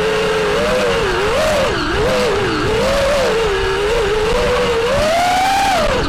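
FPV quadcopter's brushless motors whining, the pitch wavering up and down with the throttle, climbing to a higher pitch near the end and then dropping sharply.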